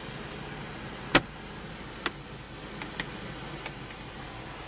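Sharp plastic clicks from the sun visor and rear-view mirror being handled inside a 2009 Smart Fortwo: one loud snap about a second in, then four lighter clicks over the next few seconds. Under them runs the steady idle of the car's three-cylinder engine, heard from inside the cabin.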